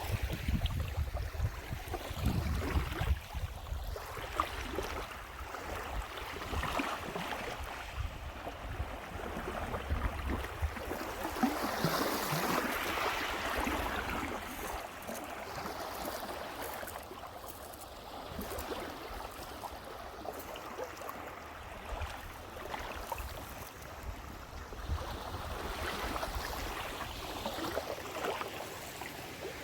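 Small waves lapping and washing at the edge of a calm lake. Wind rumbles on the microphone in the first few seconds.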